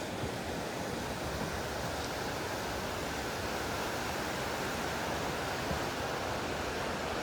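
Steady rushing of a mountain stream, an even continuous wash of water noise.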